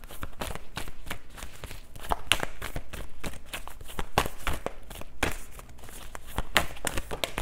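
A Starseed Oracle card deck being shuffled by hand: a quick, uneven patter of sharp card slaps and flicks.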